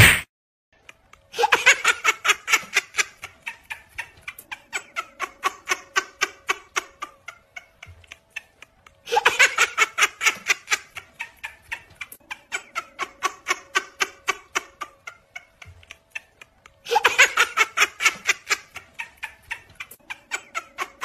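A short loud hit, then a person laughing in fast, even runs of 'ha's. Each run starts loud and tapers off, and it comes three times at even spacing, like a looped laugh sound effect.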